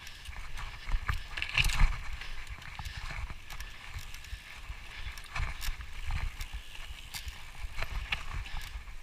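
Mountain bike riding over rough dirt trail: irregular clicks and rattles from the tyres, chain and frame over stones and roots, with a low rumble of wind on the microphone.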